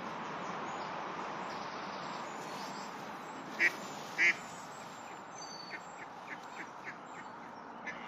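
Ducks quacking on the water: two loud quacks about halfway through, then a run of fainter calls, over a steady hiss. A few short high bird whistles come in between.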